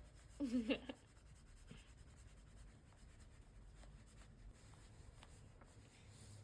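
Faint rubbing and scratching with a few light ticks, after a brief wavering voice about half a second in.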